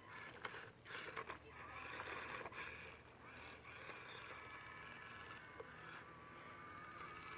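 Small electric motor and gears of an Axial SCX24 Jeep RC rock crawler whining as it climbs a rock, the pitch shifting with the throttle. A few sharp clicks come in the first couple of seconds.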